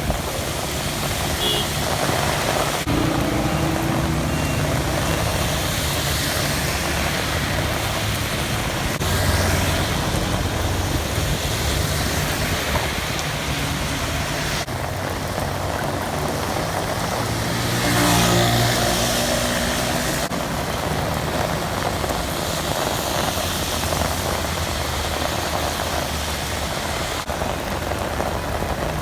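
Steady rain with motor traffic passing on a wet street; a vehicle's engine swells past about nine seconds in and most loudly about eighteen seconds in.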